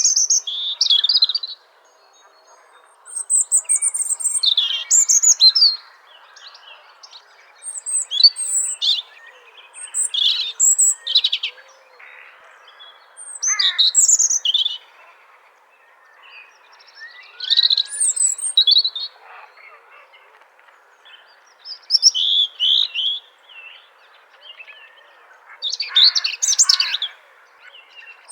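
A robin singing: high, thin, varied song phrases of one to three seconds each, repeated about eight times with short pauses between.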